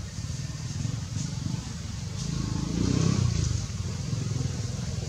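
A motor engine runs in the background as a low, pulsing rumble that swells louder about three seconds in.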